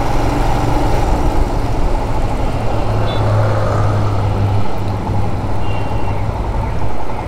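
Royal Enfield Himalayan 411's single-cylinder engine running steadily while the motorcycle is ridden through traffic. Wind and road noise rush over it, and the engine hum swells about three seconds in.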